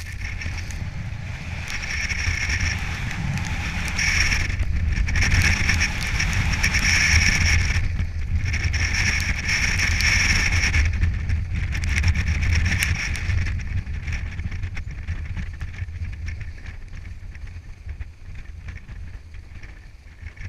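Snowboard sliding and carving through soft snow: a hiss that swells and drops off with each turn, over a steady low wind rumble on the pole-mounted action camera's microphone. The hiss fades in the last few seconds.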